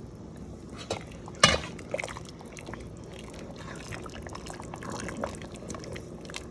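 A pot of chicken, shrimp and vegetable soup being stirred with a spoon. There is wet sloshing and scattered clicks of the spoon against the pot, with one sharper knock about a second and a half in.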